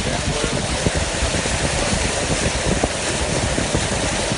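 Floodwater rushing in a steady, loud roar of noise, with irregular small knocks and wind buffeting the microphone.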